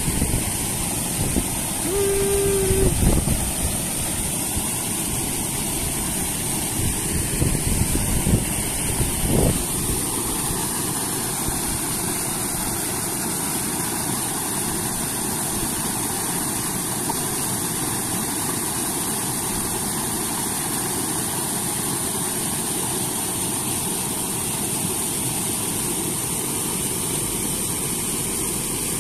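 Steady rush of water pouring over a small weir of concrete blocks, with gusts of wind on the microphone in the first ten seconds or so and a short tone about two seconds in.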